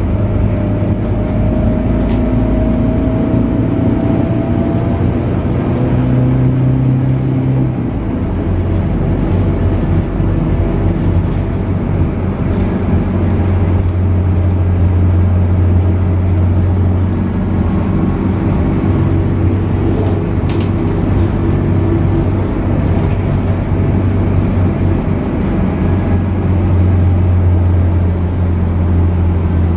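Inside the cabin of a Scania K94UB bus under way: its 9-litre six-cylinder Scania DC9 diesel drones steadily, with road noise. The engine note drops in pitch about eight seconds in and stays lower.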